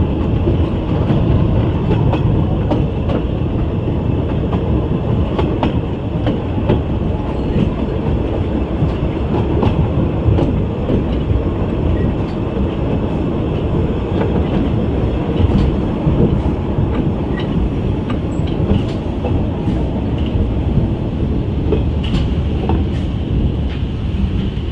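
Narrow-gauge (2 ft) passenger train running slowly along the track, heard from inside an open carriage: a steady rumble of wheels on rail with scattered, irregular clicks and knocks.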